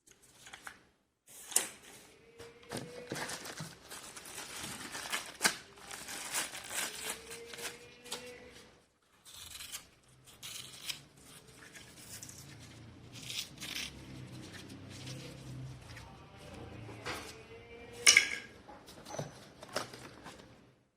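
Packaging being handled: rustling and crinkling with irregular clicks and knocks, the sharpest about five seconds in and again near the end.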